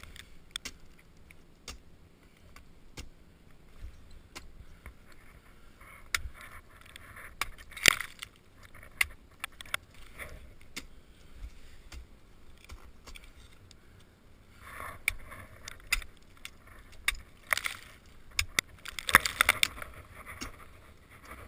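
Ice tools and crampons striking and chipping waterfall ice, with climbing hardware clinking. The sharp hits come irregularly, bunching into flurries of crunching ice about a third of the way in and again through the last third.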